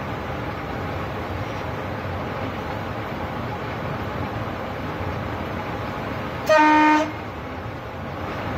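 Train running with a steady rumble heard from the driver's cab, and the train's horn sounding one short, loud blast of about half a second near the end.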